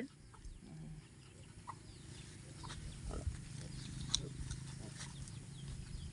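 Sow and piglets grunting steadily while they forage in the grass, with a few faint chirps and a sharp click about four seconds in.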